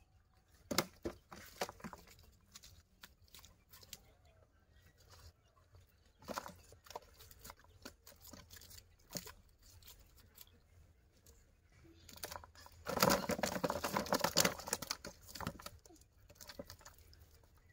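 A cast net being handled as fish are picked out of its mesh by hand: scattered rustles, crackles and taps, with live fish flapping in the net. A denser, louder stretch of rustling and flapping lasts about two seconds late on.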